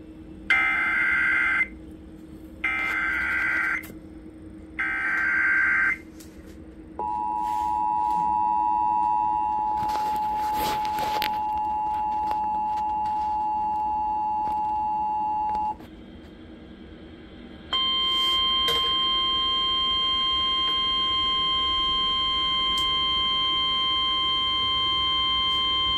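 Emergency Alert System broadcast over FM radio: three short screeching bursts of SAME digital header data, then the steady two-tone EAS attention signal for about nine seconds. After a brief gap, the single-pitch NOAA Weather Radio warning alarm tone sounds for about nine seconds, announcing a severe thunderstorm warning.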